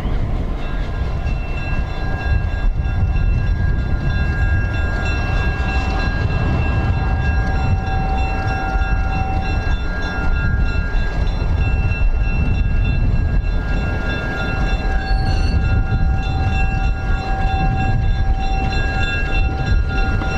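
EMD F3A diesel locomotive's engine running, a loud steady low rumble with a steady whine of several tones over it.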